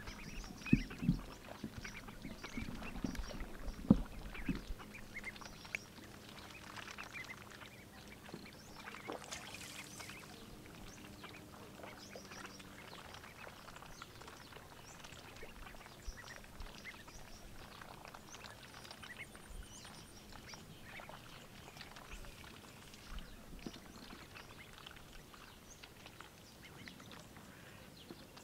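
Domestic ducks quacking and dabbling in shallow water. A few loud quacks come in the first five seconds, then softer, scattered calls and splashing.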